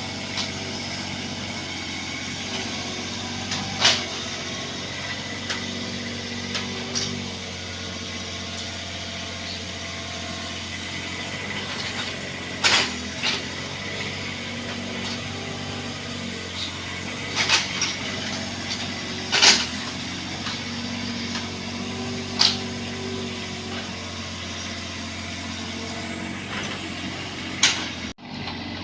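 Bobcat 322 mini excavator's diesel engine running steadily while the machine works, with half a dozen sharp knocks at irregular intervals.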